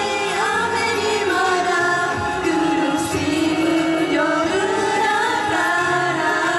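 A group of mostly female singers singing a song together through microphones, over a backing track with a steady bass line.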